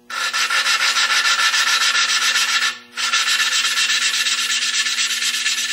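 Valve face and seat of a Briggs & Stratton 11 hp engine grinding against each other through gritty valve grinding compound as a suction-cup lapping stick spins the valve back and forth: a loud, fast-fluctuating rasp. This is a valve job, lapping the valve into its seat. The rasp breaks off briefly just before halfway, when the stick is lifted, then starts again.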